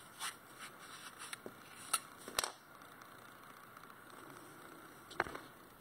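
Scattered short scrapes and light clicks, several in the first two and a half seconds and one more near the end, from handling the aluminium handle tube of a Graco SG2 airless spray gun and the pencil used to push steel wool through it.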